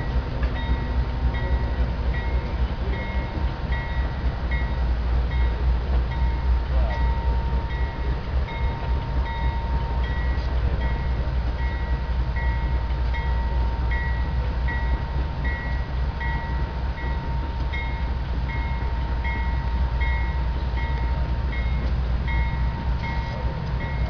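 Freight train rolling across a stone arch bridge: a steady low rumble. A faint high-pitched tick repeats a little under twice a second over it.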